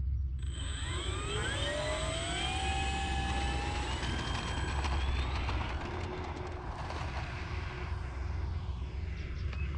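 Twin electric motors and propellers of a Flightline F7F-3 Tigercat model plane whining as it throttles up for its takeoff roll, the whine rising in pitch for the first five seconds or so, then levelling off and fading as the plane pulls away. A steady low rumble runs underneath.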